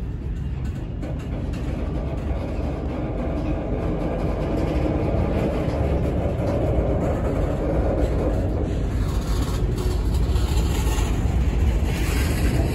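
Freight train's covered hopper and tank cars rolling past close by: a steady rumble of steel wheels on rail that slowly grows louder.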